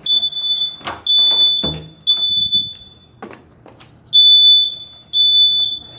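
Building fire alarm sounding high-pitched beeps in the temporal-three evacuation pattern: three beeps, a pause of about a second, then three more. A few short knocks and a dull thump fall among the first three beeps.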